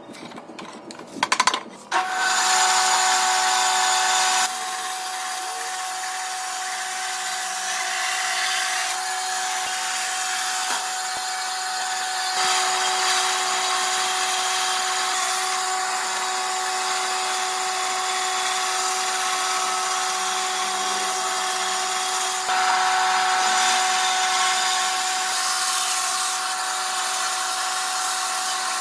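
A power tool starts about two seconds in and then runs steadily on wood, a motor whine over a hiss. It gets louder and quieter in steps a few times as the load changes.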